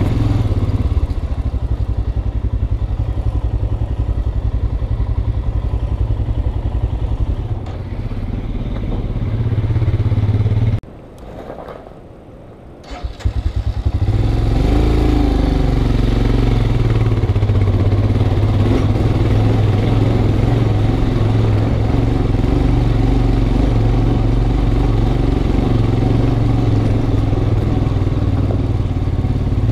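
Motorcycle engine running at low speed over a rough, rocky track, heard from a helmet-mounted camera. About eleven seconds in the sound drops away for roughly two seconds, then the engine note comes back and rises.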